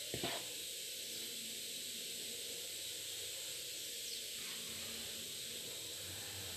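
Steady hiss, with faint soft sounds of hands mixing a crumbly flour-and-margarine dough in a bowl.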